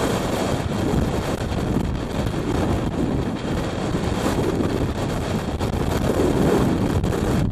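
Blizzard wind blowing hard against the microphone: a loud, steady rushing noise.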